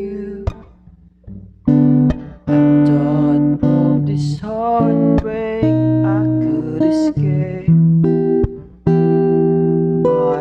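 Acoustic guitar strummed in chords, with a man singing along, picked up by a BM-800 condenser microphone during a guitar-and-vocal test. The playing drops off briefly about a second in, then picks up again with held chords.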